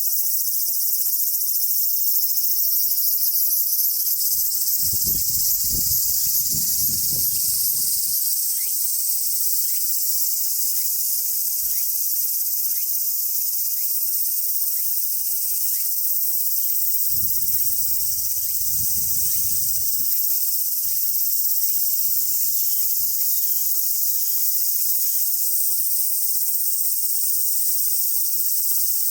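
A dense, steady chorus of insects chirping and buzzing, high-pitched. Twice a low rumble rises under it for a few seconds.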